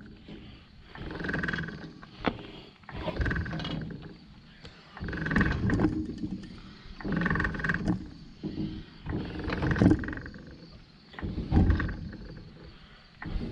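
Hydraulic floor jack being pumped under a trailer, about one stroke every two seconds, each stroke with a drawn-out creak lasting about a second as the loaded trailer is lifted.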